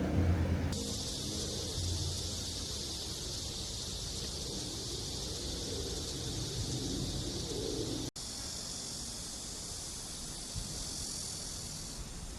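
Outdoor insect chorus, a steady high-pitched chirring that drops out for an instant about eight seconds in.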